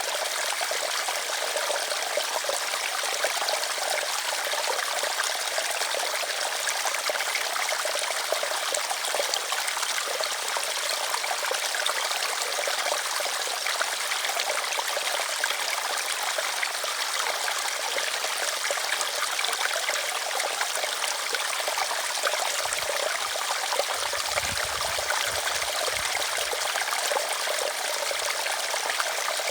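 Stream water running and trickling steadily, a constant rushing hiss with fine splashing detail. A brief low rumble is heard about three-quarters of the way through.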